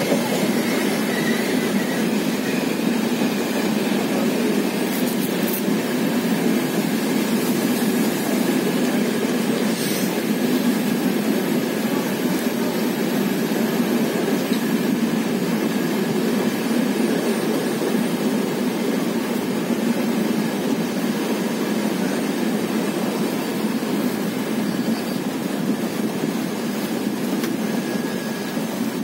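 Running noise of a moving train heard from a carriage window: a steady rumble of wheels on the rails, with a faint high tone at times.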